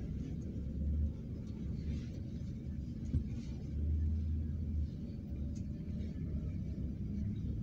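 Low, steady rumble of a moving road vehicle heard from inside its cabin, with a single short knock about three seconds in.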